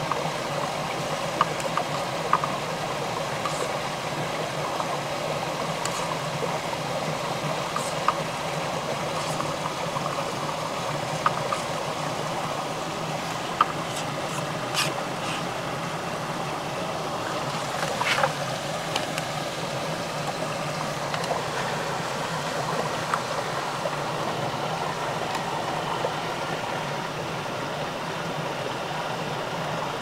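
Steady rushing and burbling of a stream, with scattered sharp clicks over it.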